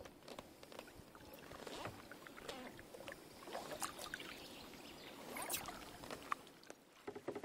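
Double-bladed kayak paddle strokes in calm river water: the blades dip and pull through with irregular splashes, and water drips and trickles off the raised blade.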